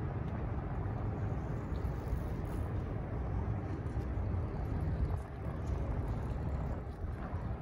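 Steady low rumble of city road traffic, even throughout with no single sound standing out.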